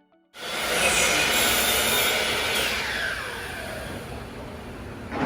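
Electric woodworking saw running loudly with a whirring hiss, its motor tone falling steadily in pitch over a few seconds as it winds down.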